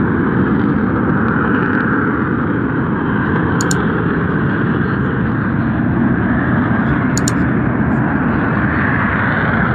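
Steady, loud, rumbling noise from the crater of Mount Bromo volcano, with a couple of faint clicks partway through.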